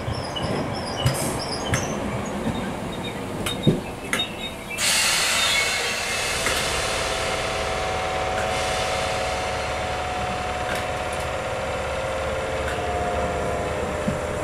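ScotRail Class 320 electric multiple unit running in along the platform and slowing: scattered clicks and knocks from the wheels and track, then a sudden loud hiss about five seconds in, and a steady whine from about six seconds in as the train draws up.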